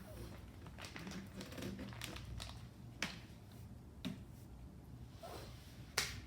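Faint handling noises in a small room: soft rustling and crinkling with a few sharp taps or clicks about a second apart.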